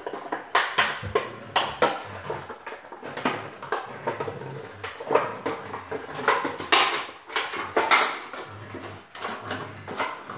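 Airedale Terrier puppies chewing and tugging a red plastic solo cup among them: irregular crackling and clattering of the crushed plastic.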